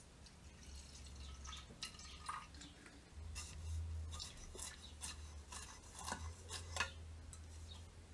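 Dark liquid finish poured from a plastic bottle into a clear plastic cup, then a paintbrush dipped in and dabbed and wiped against the cup, giving a run of small clicks, taps and drips, busiest in the middle.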